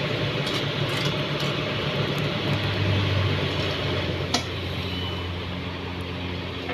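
Kobelco SK200 excavator's diesel engine running with a steady low drone that swells for a moment around the middle. One sharp knock comes a little over four seconds in.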